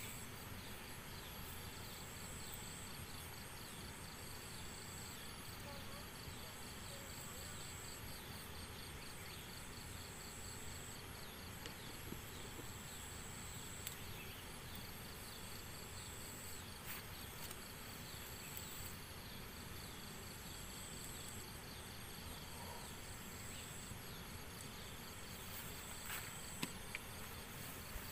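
Insects trilling in a rice paddy: a high, thin trill that comes and goes every couple of seconds over a fainter rhythmic ticking chorus, above a steady low outdoor rumble. A few soft clicks near the end.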